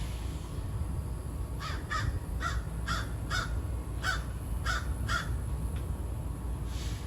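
A crow cawing: a quick series of about eight short calls over a few seconds, starting about a second and a half in.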